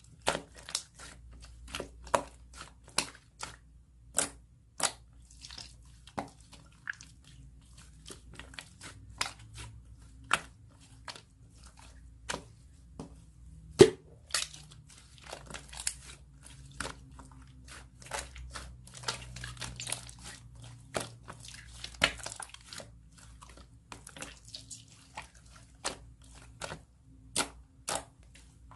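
Soft slime being pressed and stretched by hand, giving an irregular string of sharp pops and clicks, about one to three a second, as air pockets burst.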